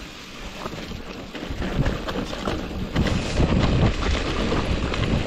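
Wind buffeting the microphone while a mountain bike rattles and knocks over a rocky dirt track, growing louder about a second and a half in.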